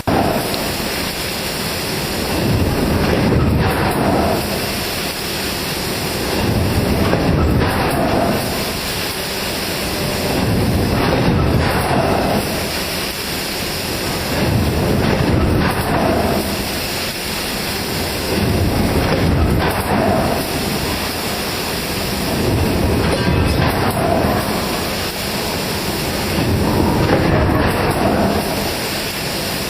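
Hot forging press line running: a loud, continuous industrial rumble that swells about every four seconds as the press cycles.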